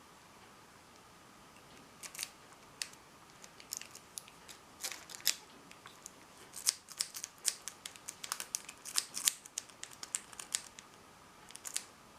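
Dimple rake pick being raked in a dimple-pin bike lock cylinder: quick, irregular clicks and scrapes of the pick against the pins. They start about two seconds in and come in clusters.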